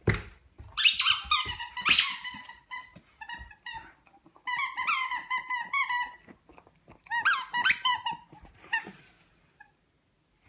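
A dog chewing an orange spiky rubber squeaky ball, giving many quick squeaks in three runs, with a short knock at the very start.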